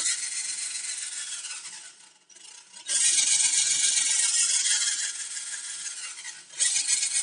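Cordless drill-driver running, backing screws out of a laptop's plastic case. The motor whine stops about two seconds in, starts again about a second later, and breaks briefly before a last run near the end.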